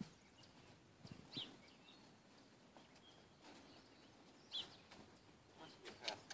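Faint outdoor background with a few short, high chirps, one about a second in and another about four and a half seconds in, and a sharper sound near the end.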